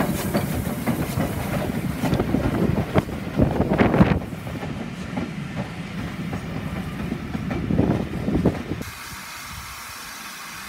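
A mainline steam locomotive and its train moving past: wheels clattering over rail joints amid steam noise, loudest in the first four seconds and again briefly near eight seconds. Near the end it gives way to a steady hiss.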